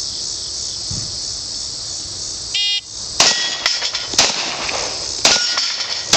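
An electronic shot-timer beep, then about half a second later a pistol fires five shots in quick succession over roughly three seconds at a steel plate rack. Short metallic pings follow some shots as the steel plates are hit.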